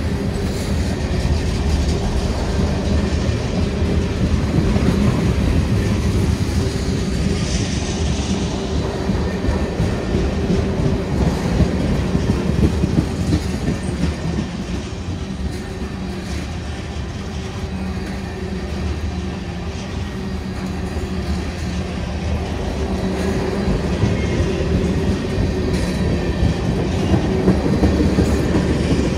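CN freight train cars rolling past with a steady rumble and wheels clacking over the rail joints.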